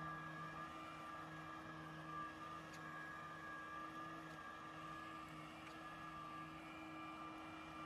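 Lymow One robotic lawn mower's electric motors running steadily as it mows grass, a low hum with a higher steady whine; the hum dips briefly a few times.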